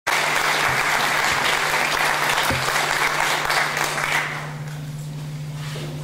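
Audience applauding, the clapping dying away a little over four seconds in. A steady low hum runs underneath.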